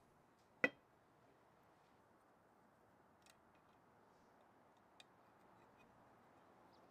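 Small clicks from the metal parts of a 1938 Craftsman scroll saw crank case being handled, over near silence: one sharp click just under a second in, then two faint ticks as a hex key is worked into a set screw on the crank.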